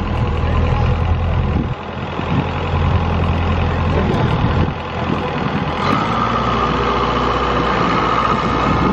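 Mack semi truck's diesel engine idling steadily, with a steady higher tone joining about six seconds in.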